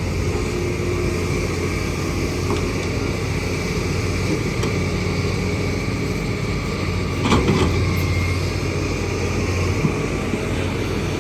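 Kobelco excavator's diesel engine running steadily, with a brief knock about seven seconds in.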